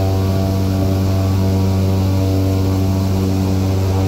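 Airboat engine and propeller running steadily at cruising speed, a constant low hum that does not change.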